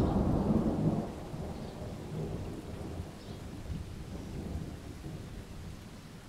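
A thunderclap breaks suddenly at the start, loudest for about a second, then rumbles and fades over the following seconds, over steady rain.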